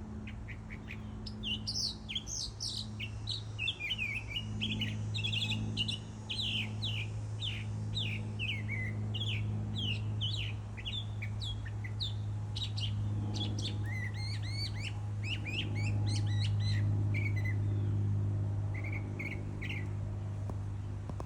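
A songbird singing a fast, varied song of short chirps and trills that stops near the end, over a steady low hum.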